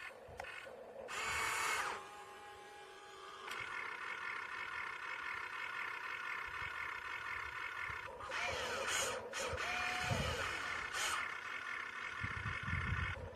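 Small electric motors and plastic gearing of a toy RC construction vehicle running with a steady whine. Louder grinding bursts come about a second in and again about eight seconds in.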